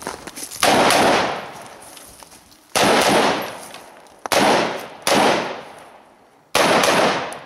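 Five single shots from a semi-automatic carbine, fired at uneven intervals of one to two seconds. Each is a sharp crack followed by a long echoing tail.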